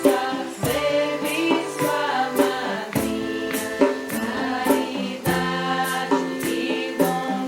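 Background music: a choir singing sustained notes over a steady beat.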